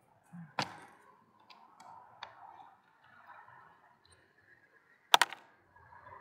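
A few short, sharp clicks and taps of camp coffee gear being handled: a plastic bottle and a glass French press on a wooden tray, with a louder double click a little after five seconds in.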